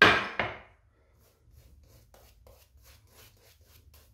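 A brief loud swish at the start, then a boar-bristle shaving brush working lather onto the face in faint, soft, rhythmic strokes, about four a second.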